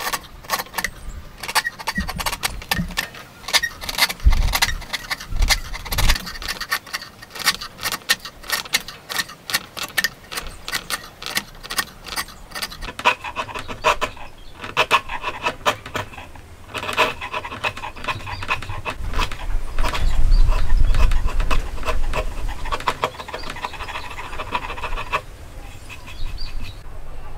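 Wide chisel pushed by hand, paring hardwood in a cut notch: a quick run of short scraping cuts, then longer rasping strokes from about halfway through.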